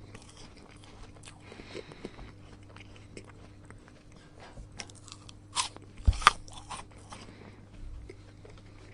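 Apple being bitten and chewed: quiet crunching chews throughout, with two sharp, loud bite crunches a little after five and six seconds in. A faint steady hum sits underneath.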